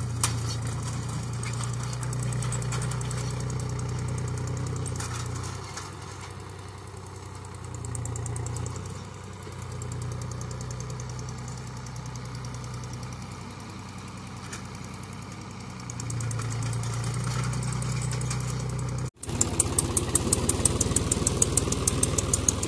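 Tractor diesel engine running under load while pulling a tined cultivator, its hum swelling and fading as the tractor moves across the field. Near the end the tractor is close by, and the engine is louder with a fast, even beat.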